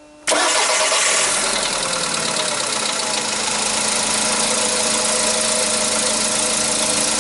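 Skoda Rapid's 1.6 CFNA four-cylinder petrol engine starting after standing 36 hours, catching about a third of a second in and settling into a steady idle with a knock. The knock appeared after an oil change; others take it for a hydraulic lifter.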